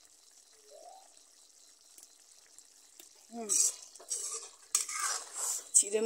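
A metal ladle stirring and scraping a wet taro-stem and roselle-leaf mixture in a metal wok. The scrapes come in a run of loud strokes from about halfway in, after a quiet start.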